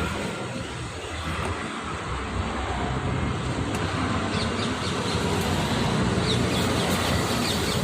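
Steady low hum and rumble of vehicle noise, like a nearby engine running or passing traffic, with a few short high chirps in the second half.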